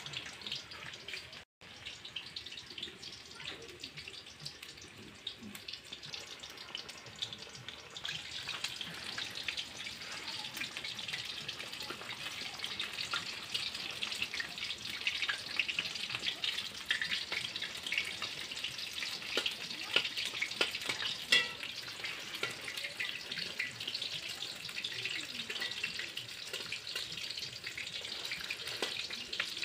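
Banana-flower fritters in gram-flour batter deep-frying in hot oil in an aluminium karahi: steady sizzling with fine crackling, a little louder from about eight seconds in. A few sharp clinks of a metal spatula against the pan as the fritters are turned.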